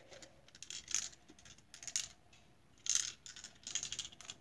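Plastic puzzle cube being twisted and tilted in the hands, its pieces clicking and the loose balls inside rattling, in about four short bursts.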